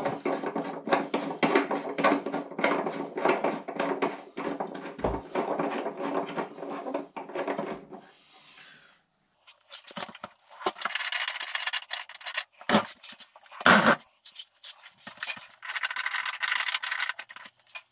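Plastic threaded adjustable legs of an integrated fridge being screwed round by hand: a dense run of rapid rubbing clicks from the plastic threads, then, after a short pause about eight seconds in, more scraping with two sharper knocks.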